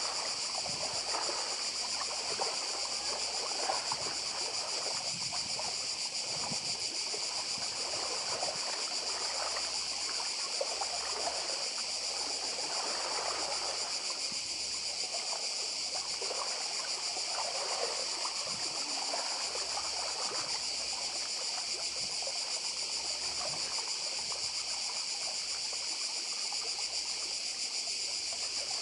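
A cicada chorus buzzes steadily and high-pitched throughout. Under it, small waves lap and trickle over shore pebbles in irregular swells.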